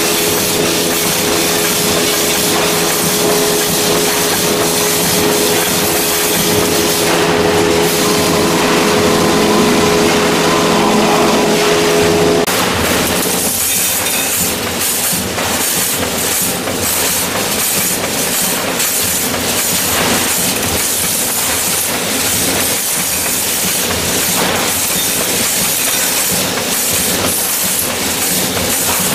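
Wire mesh welding machine running: a steady hiss with a hum that stops about twelve seconds in, followed by a regular clatter of repeated machine strokes.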